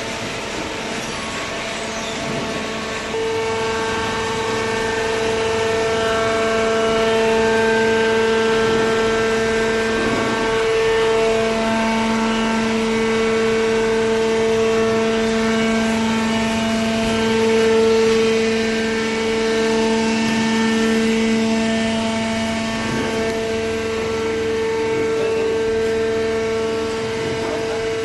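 Horizontal cardboard baler running, a steady mechanical whine with its hydraulic pump under load. It gets louder about three seconds in and holds steady after that.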